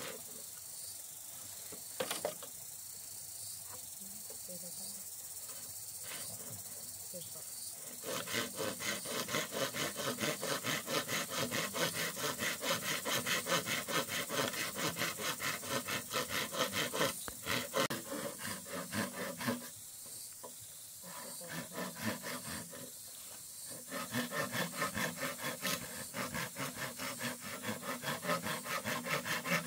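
Machete blade scraping along a green bamboo pole in quick back-and-forth strokes, several a second, a dry rasping that starts about eight seconds in and breaks off twice briefly near the end.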